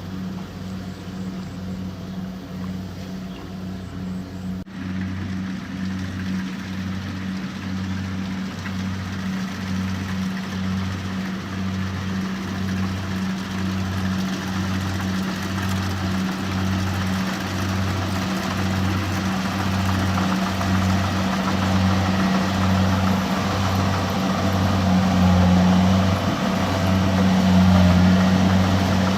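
The engine of a harvesting machine running steadily with an even, pulsing hum, growing gradually louder.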